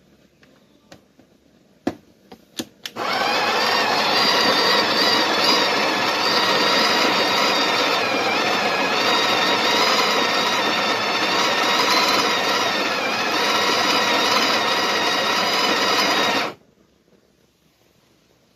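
Built-in burr grinder of a Breville 870 (Barista Express) espresso machine being tested after repair: a few clicks, then the grinder motor runs steadily with a whine for about thirteen seconds and cuts off abruptly.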